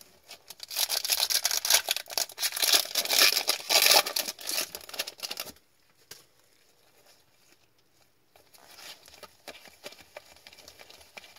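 A hockey card pack wrapper is torn open and crinkled in the hands: a loud, dense crackle for about five seconds that stops suddenly. Near the end comes the fainter rustle and tick of trading cards being slid through the fingers.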